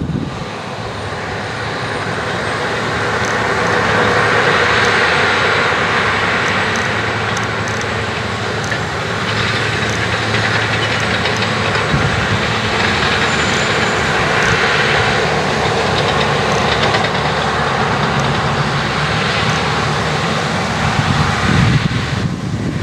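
Diesel engine of a John Deere four-wheel-drive tractor running steadily under load as it pulls an earth scraper through dirt.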